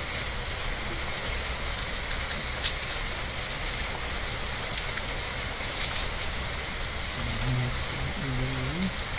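Steady rain falling, with scattered sharp ticks through it; a low voice murmurs briefly near the end.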